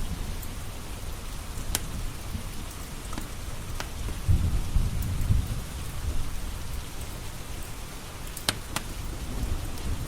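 Steady rain with a low rumble of thunder about four seconds in. A wood fire crackles over it with a few sharp pops.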